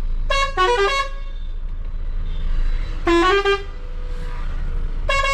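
Roots melodious multi-tone horn on a Volvo B9R bus sounding short tunes of stepped notes, twice, with a third tune starting at the very end. A steady low rumble runs underneath.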